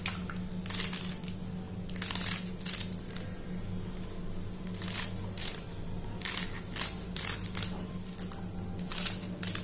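A kitchen knife slicing through a bunch of fresh spinach held in the hand, a series of short, crisp cuts at an uneven pace, over a steady low hum.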